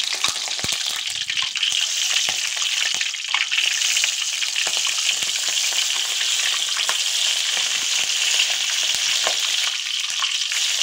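Slit green chillies deep-frying in hot oil in a wire spider strainer: a steady sizzle with scattered small crackles and pops.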